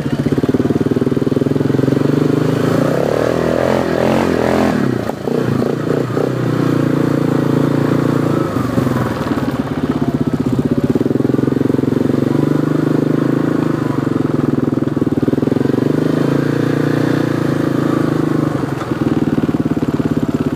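A vehicle engine running loud and close, held at high revs, with its pitch shifting up and down about two to six seconds in before settling steady again.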